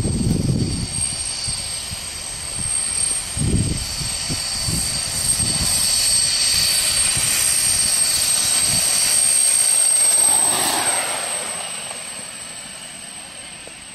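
Small jet engine on a 7.5-inch gauge live model of the M-497 "Black Beetle" jet train, running with a steady high-pitched whine and jet rush. It grows louder until about ten seconds in, with a falling sweep in pitch as it passes, then fades as the train moves away.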